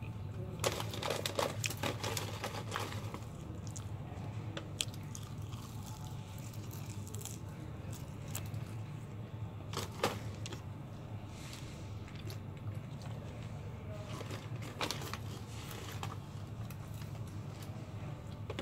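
Crinkling, tearing and crunching from handling KFC fried chicken and its paper packaging: a run of crackles in the first few seconds, then scattered ones with sharp single snaps about ten and fifteen seconds in, over a steady low hum.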